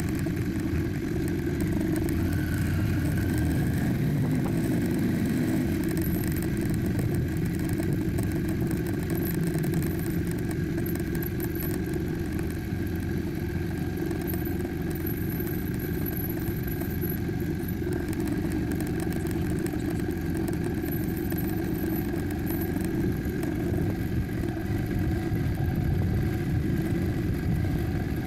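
KTM 790 Adventure's parallel-twin engine running steadily as the motorcycle rolls along at low speed, heard from a camera mounted on the bike.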